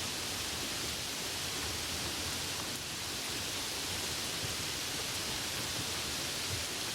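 Steady rain: an even, unbroken hiss with no separate drops or other sounds standing out.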